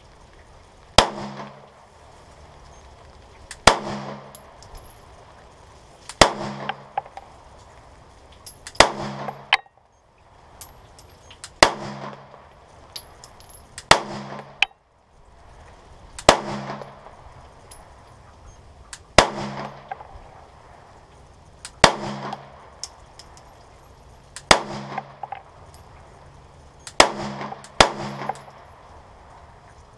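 Canik TP9 9mm pistol firing single shots at a slow, steady pace, about one every two and a half seconds, a dozen or so in all, each crack trailing off in echo. Near the end two shots come closer together.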